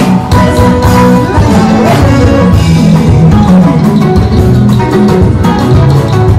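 Music: a band with drum kit, bass and guitar playing a steady beat.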